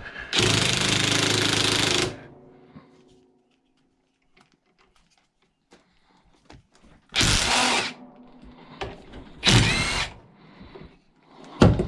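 Power drill with a driver bit running in bursts: one long run of about two seconds, then two short ones later, with small clicks and knocks between them. It is being used to back a stubborn brass fitting out of a cast aluminium barbecue burner jet.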